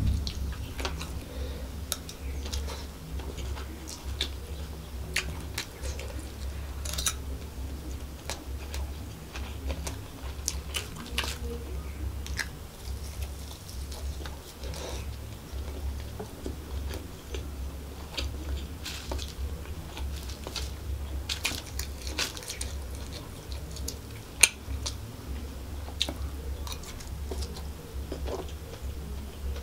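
Close-miked chewing and biting of chicken fried rice and roast chicken, with many wet mouth clicks and smacks over a steady low hum. One sharp, loud click comes near the end.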